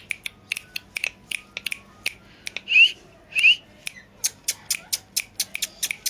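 Indian ringneck parakeet giving two short rising chirps about three seconds in, amid a run of sharp, irregular clicks that come faster toward the end.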